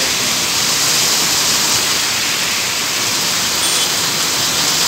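Heavy rain pouring onto a wet road, a steady, dense hiss with no let-up.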